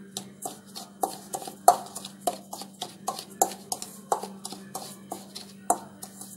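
Metal spoon scraping and clinking against a stainless steel bowl in quick, even strokes, about three a second, while stirring salt into dry rice flour.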